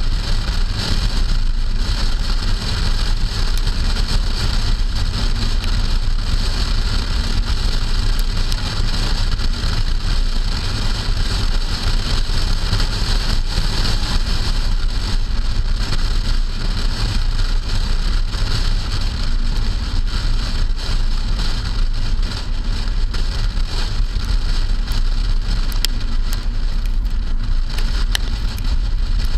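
A 2008 Hyundai Sonata driving on wet roads, heard from a camera on its trunk: a steady rush of wind and tyre noise with the hiss of rain. A few clicks near the end.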